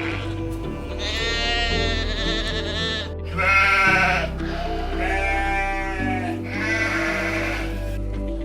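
Sheep bleating, about four long calls one after another, over background music.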